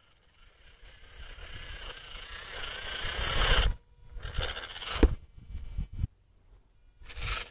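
Losi Trail Trekker RC crawler's electric drivetrain and tyres grinding and scraping over loose dirt, growing louder as it closes in. After the loudest moment it cuts off suddenly, then comes back in short bursts with sudden stops.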